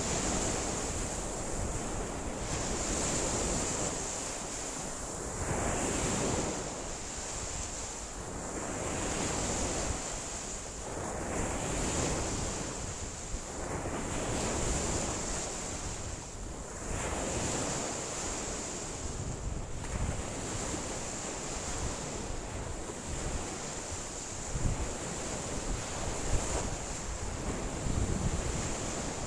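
Lake waves breaking and washing ashore in surges every two to three seconds, with strong wind gusting against the microphone and a steady high hiss over it all.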